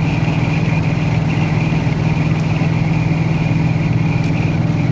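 Coyote 5.0 V8 in a first-generation Ford F-150 Lightning pickup cruising at highway speed, a steady low engine drone mixed with road noise, heard from inside the cab.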